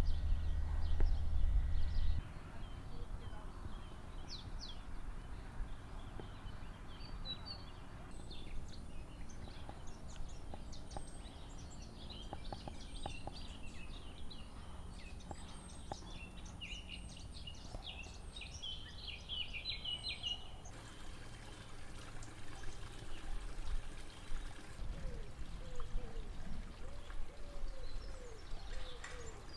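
Songbirds singing and calling in spring woodland and hedgerows: many quick chirps and trills, densest midway, with a few lower, gliding calls near the end. A low rumble in the first couple of seconds stops abruptly.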